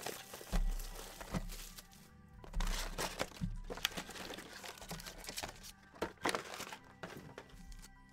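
Foil trading card pack wrappers crinkling and tearing in short, irregular bursts as packs are opened and cards handled, over background music.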